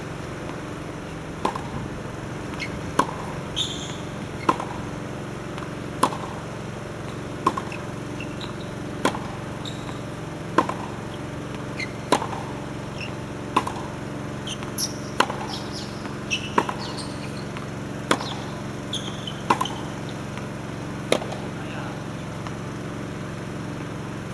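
Tennis ball struck by a racket in a steady hitting rhythm, one sharp crack about every second and a half, with a fainter bounce after some of the hits. The hits stop a few seconds before the end, leaving a steady low hum.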